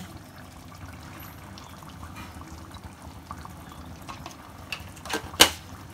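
Thick chicken korma gravy bubbling and sizzling steadily in a pan over a high gas flame, with two sharp clicks a little after five seconds in.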